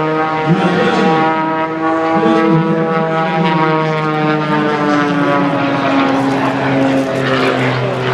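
Propeller aircraft flying past, its engine-and-propeller tone falling slowly in pitch as it goes by.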